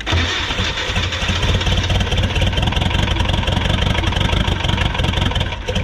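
Freshly rebuilt Mercedes Sprinter 412 diesel engine running for about six seconds, starting abruptly and stopping near the end. The loud knocking noise it was brought in for is no longer there.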